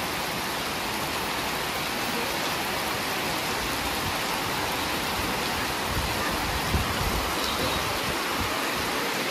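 Steady rain falling on a pond's water surface, an even hiss, with a few low knocks about two-thirds of the way through.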